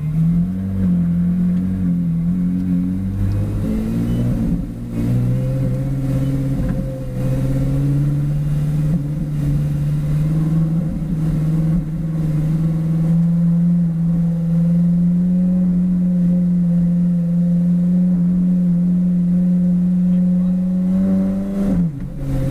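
Ferrari 458 Challenge's V8 engine heard from inside the cockpit, running at low revs with a steady note as the car rolls slowly in first gear. About 22 seconds in, the note dips briefly as it shifts into second.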